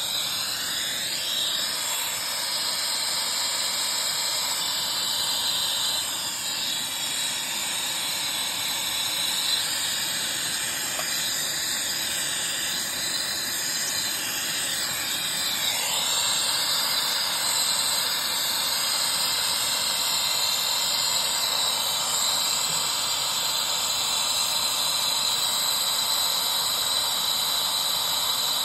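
Hand-held gas torch flame hissing steadily as it heats copper refrigerant lines at a condenser's brass service valves, warming the joints for sweating (soldering).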